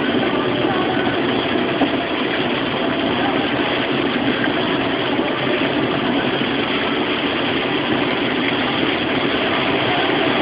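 Steady rushing noise inside a car driven in heavy rain: rain on the car and tyres on the wet road, with the engine running underneath.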